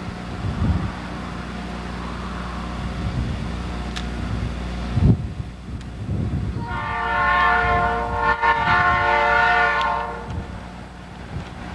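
An approaching electric passenger train sounds its multi-tone horn in one long blast of about three seconds, over the low rumble of the train's approach.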